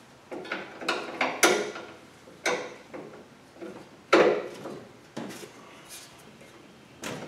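Hand tools working a transmission cooler line fitting at the radiator: about seven separate sharp metallic clicks and knocks, the loudest about four seconds in.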